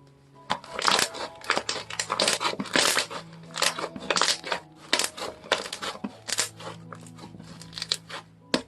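Slime being squeezed, pressed and stretched by hand, giving a dense run of irregular crackling and popping clicks.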